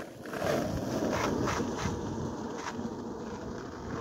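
Skateboard wheels rolling over rough parking-lot asphalt: a steady rumble that slowly fades as the board rolls away.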